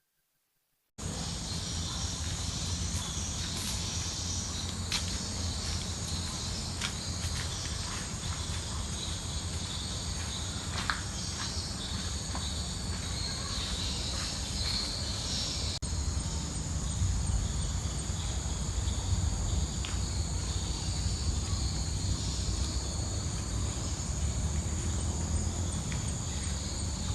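Tropical forest ambience: insects chirring steadily in a high pitch over a low rumble, with a few faint clicks. It starts suddenly about a second in.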